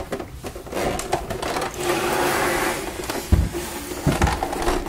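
Handling noise from a plastic-cased electronic typewriter being moved and turned on a hard surface: scraping and rubbing, then a few knocks in the second half.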